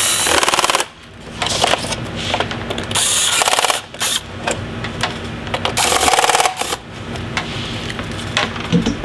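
Electric screwdriver driving the back-housing screws into a Cisco 7960 IP phone, in three short runs of under a second each, about three seconds apart, with rapid ticking, and light handling noise between.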